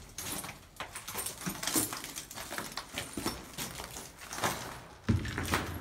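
Irregular close-up rustling, scraping and knocking as the camera is handled against a wooden plank and concrete wall, with a heavier thump about five seconds in.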